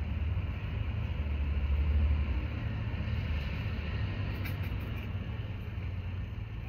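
A low rumble that swells about two seconds in and then slowly eases off, with a faint hiss above it.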